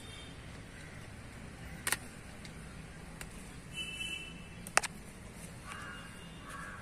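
Crows cawing, twice near the end, over a low steady hum, with a few sharp clicks: the loudest about two seconds in and a double click just before five seconds.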